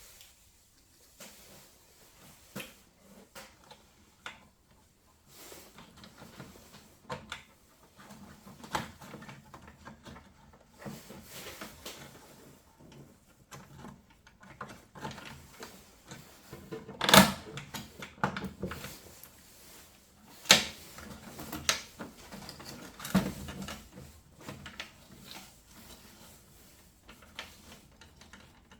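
Irregular clicks, knocks and rattles of parts and casing being handled during work on a boiler, with a few louder sharp knocks past the middle.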